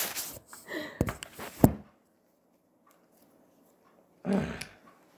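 Handling noise from the camera being picked up and moved: rubbing and rustling with clicks and a sharp knock, then a near-silent gap of about two seconds, then a short muffled low rumble near the end.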